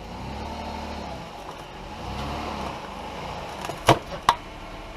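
A 2005 Chrysler 300's 3.5-litre V6 running as the car is driven to warm the engine oil; the engine note rises and falls twice. Two sharp clicks come close together near the end.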